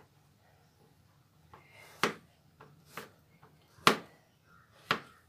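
Four sharp knocks of kitchen utensils, about a second apart, the third the loudest.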